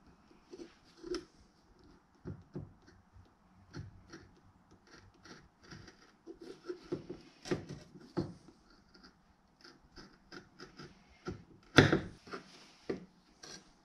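Seamstress shears cutting across a thick leather belt blank: a run of short, irregular crunching snips as the blades work through the leather, the loudest near the end.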